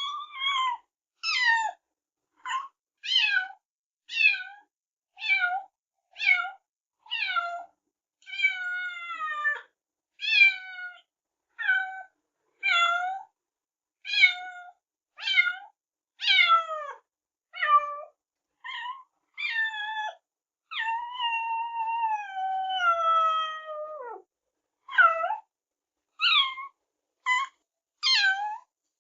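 Kittens meowing again and again: a string of about two dozen short, high meows, most falling in pitch. Two are long and drawn out, one about eight seconds in and a longer one of about three seconds two-thirds of the way through.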